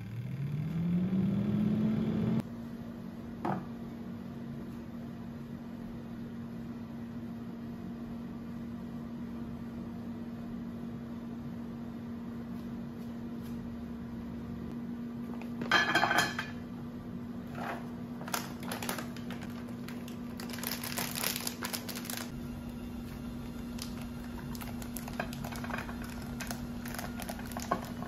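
Philips air fryer's fan motor spinning up as it is switched on to preheat: a hum rising in pitch for about two seconds, then cut off sharply. A steady low hum follows. In the second half comes a plastic bag crinkling, with ingredients rattling as they are poured into a Thermomix TM6 mixing bowl.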